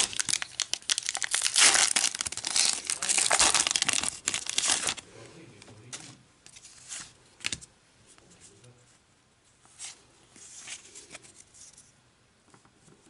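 Foil trading-card booster pack crinkling and tearing as it is pulled open by hand, loud for about five seconds. After that, quieter scattered rustles and light taps as the stack of cards is taken out and handled.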